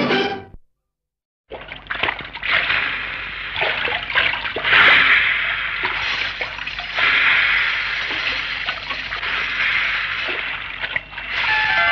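A film song's last notes cut off, then after a second of silence a steady rushing, splashing water sound effect starts up, opening the next old Tamil film song. Near the end, ringing bell-like tones come in over it.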